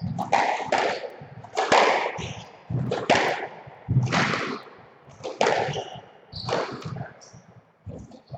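A squash rally: the ball is struck by rackets and smacks off the walls in sharp cracks, each with a short ringing echo in the court, about one or two a second.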